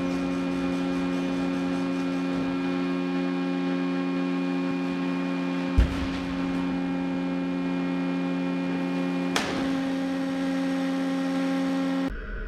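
Steffen Systems large square bale conversion machinery running with a steady electric hum as it feeds compressed alfalfa bales toward the slicer. There is a single thump about six seconds in and a lighter click about nine seconds in. The hum cuts off just before the end.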